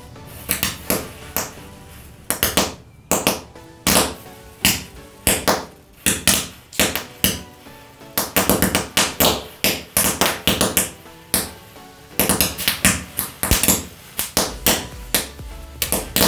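Background music with sharp, frequent percussive hits over a steady backing.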